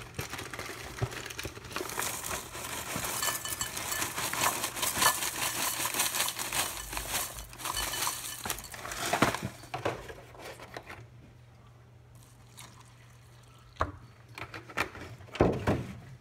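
Special K flakes pouring from a crinkling plastic bag liner into a ceramic bowl, a dense pattering rattle for about eight seconds. A few short knocks and clatters follow near the end.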